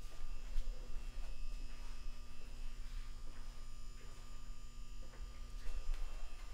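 Steady electrical mains hum with a buzz from the building's powered equipment. A higher hum tone drops out near the end, and there are a few faint taps.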